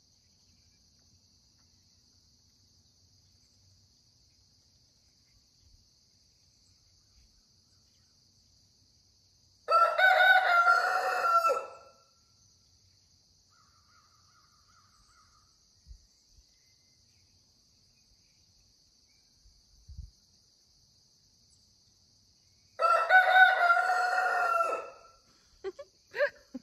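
Rooster crowing twice, each crow lasting about two seconds, with roughly thirteen seconds between them.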